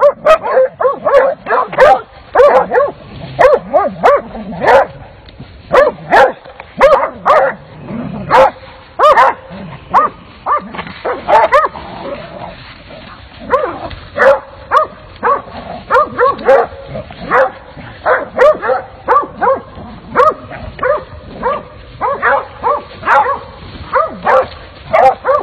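Hunting hounds barking and baying in quick succession, about two calls a second, sometimes overlapping, at a coyote cornered in its hole.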